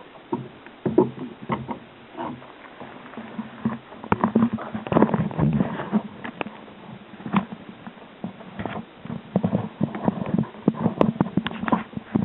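Irregular knocks, clicks and rubbing: handling on a fishing kayak. The knocks come thickest about four to six seconds in and again near the end.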